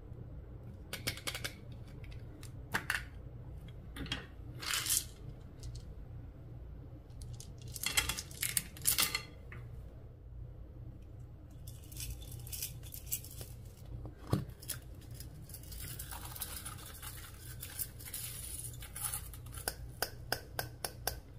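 Slime being worked by hand: bursts of sticky crackling and popping clicks, then a longer stretch of dense crackling in the second half.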